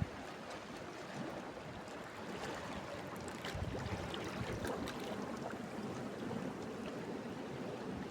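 Steady wash of sea water at the shore, an even rushing noise with a few faint small clicks.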